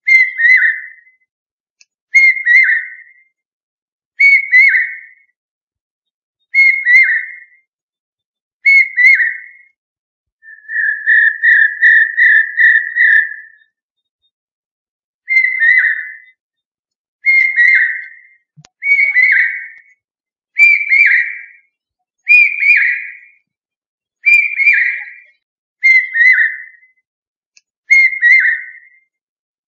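Loud whistled call: a short falling note repeated about every two seconds, with a quick run of about seven notes near the middle.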